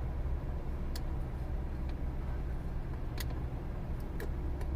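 Lexus LS 430's 4.3-litre V8 idling, heard from inside the cabin as a steady low hum, with a few light clicks of dashboard knobs and switches being worked.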